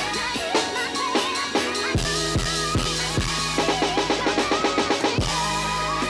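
Background music with a steady drum beat, deep kick hits and a melody on top. About halfway through comes a quick run of rapid drum hits.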